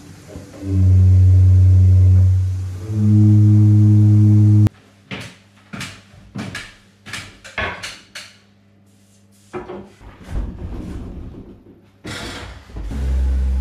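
Bass pipes of a church organ's wind chest sounding two long low notes in turn, the second a little higher, cutting off abruptly. Then comes a run of knocks and clatter as a tall pipe is handled into place, and near the end a steady low drone starts.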